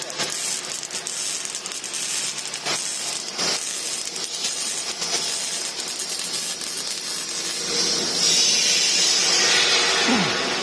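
MIG welding arc crackling and sizzling steadily as a test weld is run. About eight seconds in the welding stops and a louder steady hiss takes over.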